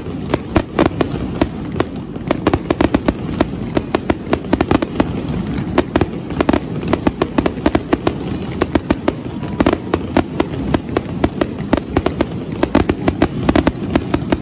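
Aerial fireworks display: a dense, unbroken barrage of shell bursts, many sharp cracks a second over a steady low rumble.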